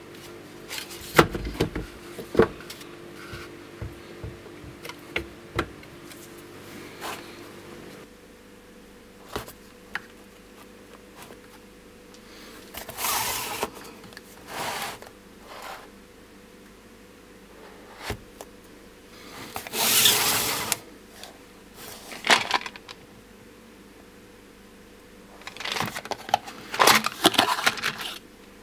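Handling noise at a workbench: sharp clicks and knocks as a rifle stock's folding hinge is worked by hand, then scraping and rustling as cardboard bullet boxes are moved, and near the end a run of small clinks as fingers rummage through loose copper bullets in a box.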